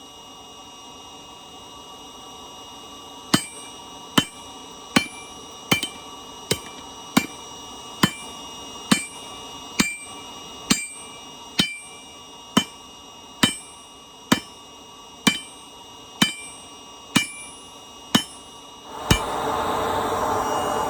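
Hammer blows on a hot railroad spike on an anvil, drawing it out flat, about one strike a second after a few seconds of quiet, each blow ringing. Near the end a steady rushing noise starts up.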